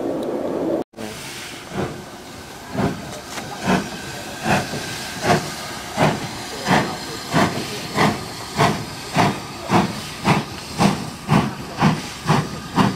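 LNER B1 steam locomotive No. 1306 pulling away with its train, its exhaust beats speeding up from about one a second to about two a second, with steam hissing. Before the beats, about a second of steady rushing noise cuts off abruptly.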